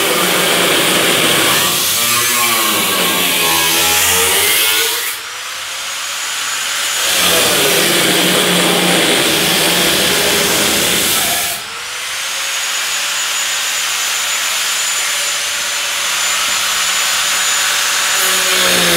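A hand-held grinder with a cutting disc slices through the rusty sheet-steel cowl of a 1968 Chevy C-10 cab. Twice, about five seconds in and again about eleven and a half seconds in, the sound drops away briefly, then the motor's whine climbs back up as the cut goes on.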